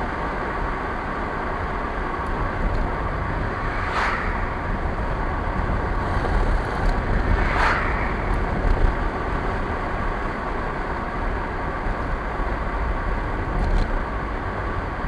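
Steady road and engine noise of a car driving at speed, heard from inside the cabin, with brief swishes about four and eight seconds in.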